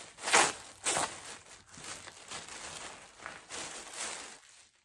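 Plastic packaging rustling and crinkling as a t-shirt is taken out of it. There are a couple of louder crackles in the first second, then softer rustles that die away near the end.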